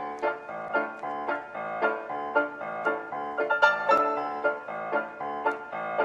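Background piano music: a steady run of quick notes and chords.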